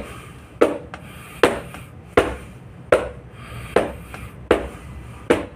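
Hands striking a person's back in a rhythmic percussive massage: seven sharp, even slaps, about one every three-quarters of a second.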